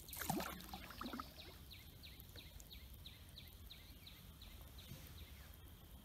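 A bird calling a long run of short, high, falling notes, about three a second, faint over quiet river ambience. A few louder, lower sounds come in the first second or so.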